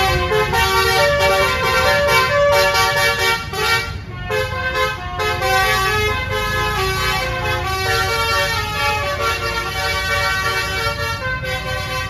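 A bus's Basuri telolet horn playing a fast melody of short stepped notes, with a brief break about four seconds in, over the low rumble of the bus's engine.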